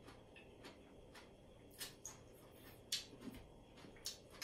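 Faint clicks and light taps of a person eating with a spoon and fork, about five sharp ticks spread out, the loudest about three seconds in.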